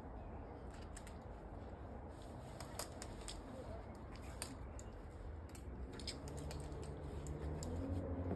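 Scattered light clicks and ticks over a low, steady outdoor background. About six seconds in, a low steady hum joins and grows louder.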